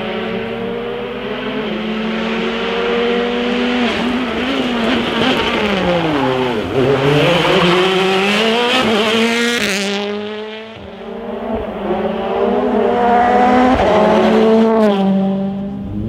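Turbocharged four-cylinder World Rally Car engines at full rally pace, heard in short cuts. One car holds steady revs, then its revs drop and climb again around the middle as a Hyundai i20 WRC brakes and powers away. After a sudden cut near ten seconds, another car accelerates hard, its revs climbing through several gear changes.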